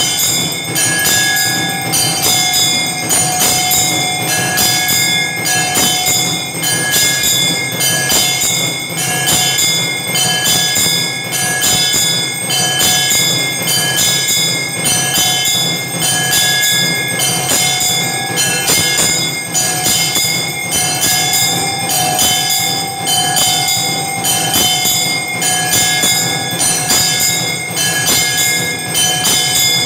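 Bells ringing in a steady rhythm, about three strokes every two seconds, with a few long ringing tones beneath them.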